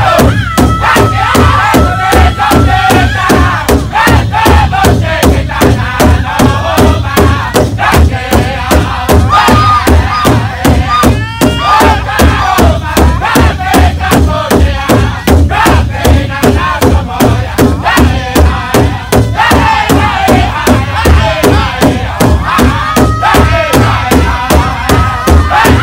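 Powwow drum group: several men strike a large shared drum together, about two and a half even beats a second, while singing in chorus in high voices. A high held note rings out about a second in and again near the end.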